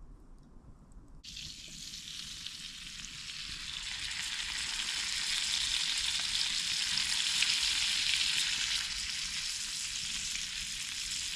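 Parboiled potato pieces frying in a pan over a campfire: a sizzle that starts abruptly about a second in, grows louder for several seconds, then holds steady.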